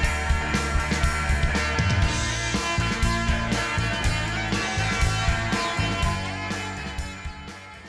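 Background rock music with guitar and a steady beat, fading out toward the end.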